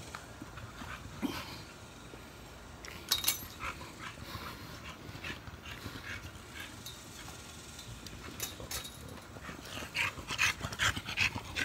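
Dogs moving about and breathing close by: scattered short rustling and clicking sounds, busier about three seconds in and again near the end.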